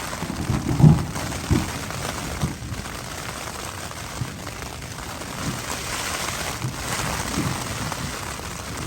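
Steady rain falling, with heavy drops landing close by at irregular moments; the strongest thud comes about a second in.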